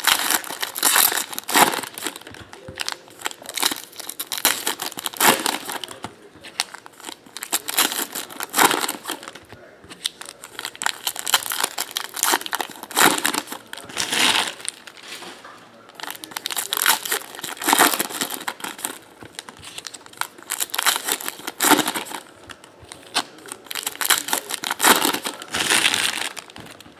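Foil trading-card pack wrappers crinkling and tearing as packs are ripped open and handled, in irregular rustles again and again.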